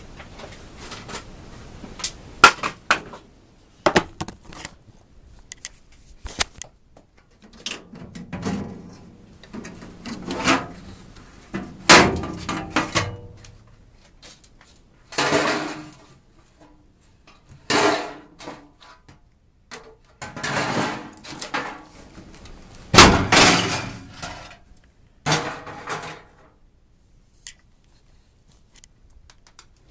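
Irregular clattering, knocking and rustling as objects are handled, with sharp clicks and several longer bursts of clatter about a second each, the loudest about two-thirds of the way through.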